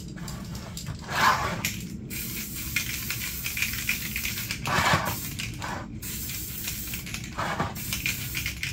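Aerosol spray can of black paint hissing in short bursts, dusting a light coat over plastic tail-light surrounds, with a few louder bursts among them.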